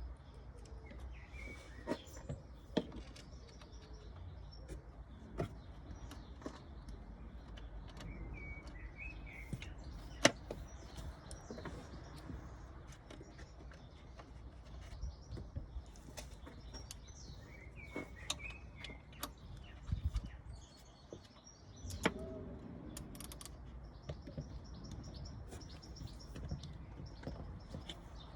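Birds chirping in short bursts, over a steady low rumble, with scattered sharp clicks.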